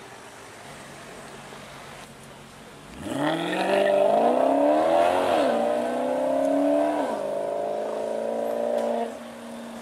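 A sports car's engine revving hard as it pulls away, the note climbing and dropping back twice at gear changes, then holding steady before it fades quickly near the end.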